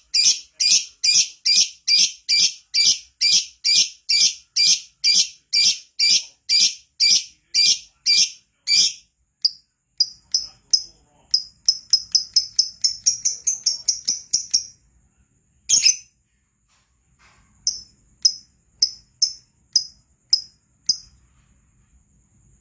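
Lovebird singing: a long run of loud, shrill chirps about two a second, then a quicker chattering run, then sparser chirps.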